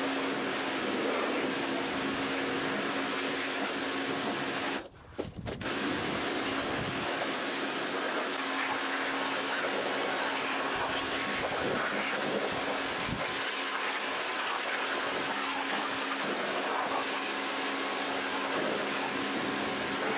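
Pressure washer running, its jet spraying onto a lawnmower's plastic deck: a steady hiss with a steady hum underneath. It stops briefly about five seconds in, then carries on.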